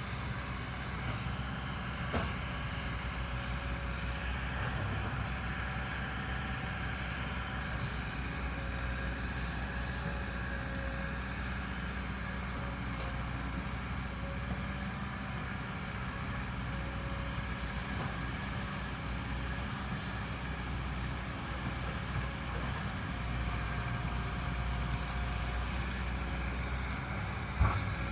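Kobelco excavator's diesel engine running steadily while it digs into a hillside, with a sharp knock about two seconds in and a louder one near the end.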